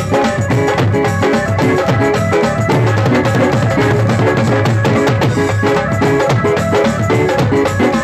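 Electronic keyboard played over a steady drum beat, loud and continuous.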